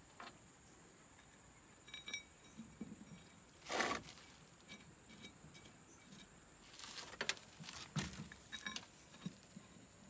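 Faint metal clinks, taps and scrapes from hands working a bolted steel cover plate on a backhoe, with one louder, longer noise about four seconds in and a few sharper knocks between seven and nine seconds.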